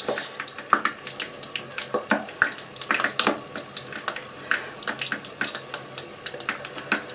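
Grated cheese being pushed off a plate by hand onto a dish of chips: soft rustling with scattered light clicks and taps of fingers and plate.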